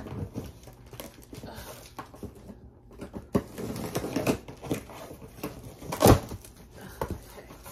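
A large cardboard box being handled and opened by hand: cardboard scraping and rustling with irregular knocks, the loudest about six seconds in.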